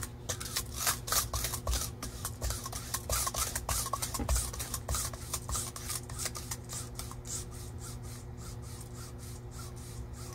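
Two luer-locked syringes being pumped back and forth by hand, the rubber plunger stoppers rasping and rubbing in the barrels as Surgiflo gelatin matrix is mixed with thrombin until smooth. The quick scratchy strokes grow fainter in the last few seconds, over a steady low hum.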